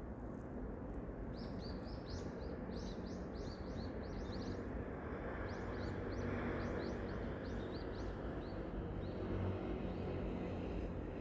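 Small birds chirping in quick runs of short, high notes from about a second in until near the end, over a steady low background rumble.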